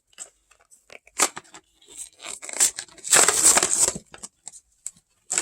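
Plastic toy packaging being torn and crinkled open: a few short rips and clicks, then a longer, louder tear about three seconds in.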